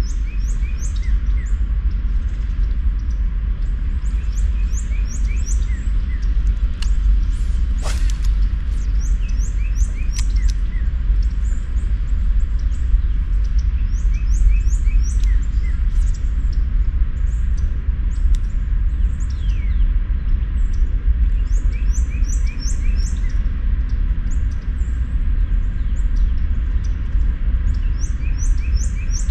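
Small birds chirping in repeated quick runs of high notes, with some lower notes between, over a steady low rumble. A single sharp click about 8 seconds in.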